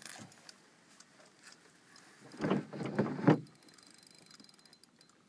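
Spinning reel being cranked while a fish is played, with a faint, rapid, even clicking. About two seconds in, a loud second-long rustle with a few knocks breaks over it.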